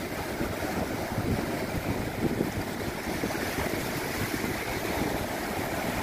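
Sea surf washing onto the beach and breaking over low rocks, a steady rushing wash, with wind buffeting the microphone.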